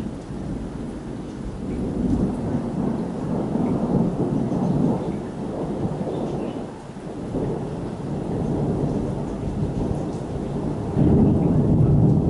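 Long rolling thunder rumbling in waves, easing off in the middle and growing suddenly louder near the end.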